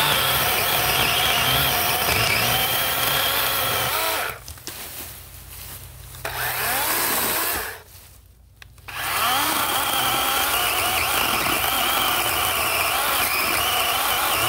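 DeWalt 20V XR cordless chainsaw's electric motor running and cutting, its whine dipping in pitch as the chain loads up. It stops twice, about four seconds in and again near eight seconds, and starts up again each time.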